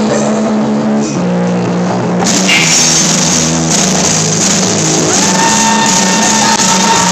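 A rock band plays live with distorted electric guitars and a drum kit, loud and full. A long held high note comes in about five seconds in.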